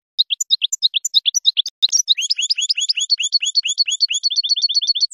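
European goldfinch singing: a rapid run of high, twittering notes that settles about two seconds in into a fast repeated phrase of downward-sweeping notes, speeding up near the end.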